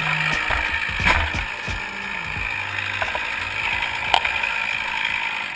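Two-stroke chainsaw idling after a felling cut, its engine note dipping and rising briefly, with a few sharp knocks or cracks.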